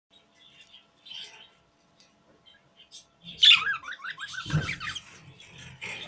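Budgerigars chirping and chattering. Soft, scattered chirps in the first three seconds, then a loud chirp and a quick run of warbling notes about three and a half seconds in. After that comes denser, rough chatter with a low muffled noise under it.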